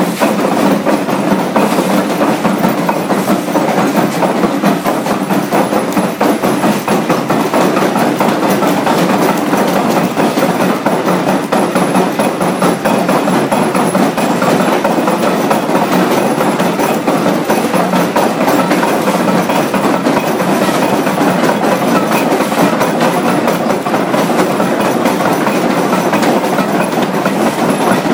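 Three-stamp mill running, its stamps dropping in the mortar box to crush ore in a steady, rapid clatter of heavy impacts.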